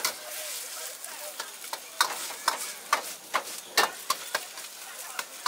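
Egg fried rice sizzling in a wok while a steel ladle stirs and scrapes it, the ladle knocking sharply against the wok about twice a second in an uneven rhythm.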